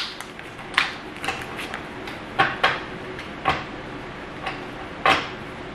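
A tarot deck being shuffled by hand: a few sharp card snaps and taps, spaced irregularly.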